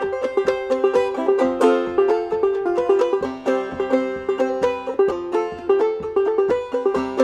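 Five-string banjo played clawhammer style: a quick, steady run of plucked melody notes over ringing open strings.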